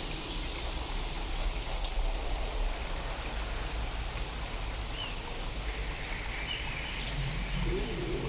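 Steady rain falling, from a real storm recording reworked to sound alien, over a constant deep low rumble. A wavering low tone comes in near the end.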